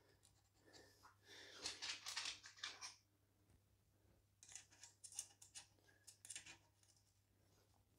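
Faint rustling and light clicking of a toothed drive belt being fed under and over the rollers on a laser engraver's aluminium gantry rail. It comes in two short spells over a faint steady low hum.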